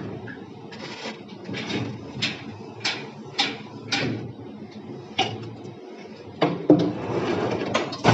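A series of short sharp knocks and clatter of hard objects being handled, about two a second at first, then two louder knocks followed by a stretch of scraping near the end.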